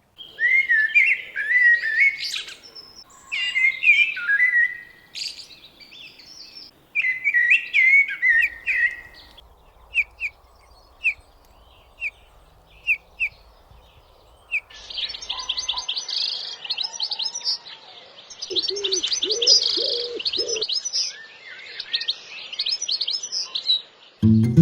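Wild birds singing and calling. First come warbling song phrases, then a run of single short call notes about one a second, then a dense, busy chatter with a few lower calls mixed in.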